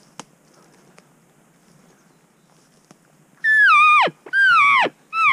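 Cow elk mews, most likely blown on a hunter's elk call: three loud, high calls starting about three and a half seconds in, each sliding steeply down in pitch over about half a second. A single faint click comes just after the start.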